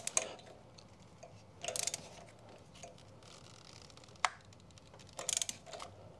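Small torque wrench ratcheting a spark plug down through a socket and extension, in three short bursts of rapid clicks, with one sharp single click a little after four seconds in.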